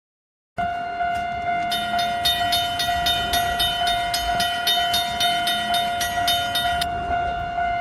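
Railway crossing and train sound effects: a long steady horn-like tone over a rumbling train noise. From about two seconds in, a bell rings in a fast, even rhythm and stops about a second before the tone cuts off.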